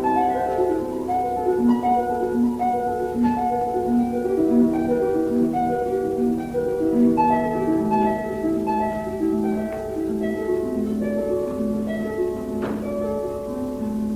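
Instrumental music: a flowing melody of single pitched notes over a lower line, with a held low note in the second half.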